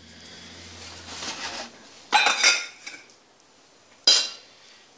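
Dried yeast granules pouring into a stainless steel mixing bowl with a faint hiss, then metal clinking with a short ring about two seconds in and again, sharply, about four seconds in, as a small metal bowl knocks against the mixer bowl.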